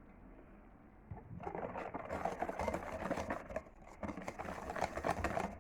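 Hand whisk beating flour into cake batter in a mixing bowl: a quick, uneven run of wet scraping and clicking strokes starting about a second in.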